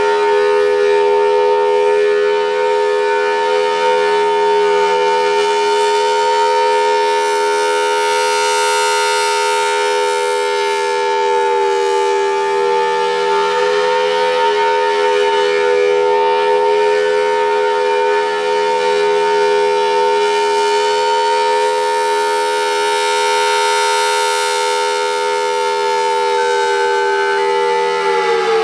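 Federal Signal Thunderbolt 1003A outdoor warning siren sounding a steady tone, its pitch held level while the rotating horn sweeps around, so the sound swells and fades. Right at the end the pitch starts to fall as the siren begins winding down.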